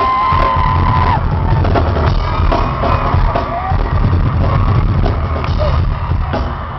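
Loud live pop concert music over a PA, with a heavy bass beat and a crowd yelling. A high held note breaks off about a second in.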